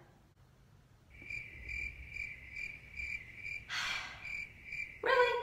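Cricket chirping sound effect, the stock 'crickets' gag for an awkward silence: a high chirp repeating about two to three times a second, starting about a second in. A short breathy sound comes just before the four-second mark, and a brief vocal sound at the very end.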